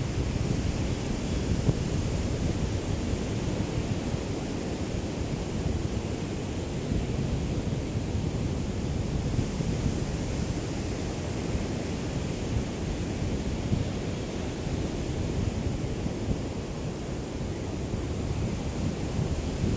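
Small waves of a calm sea lapping on the shore, a steady wash that gently swells and eases, with a light breeze rumbling on the microphone.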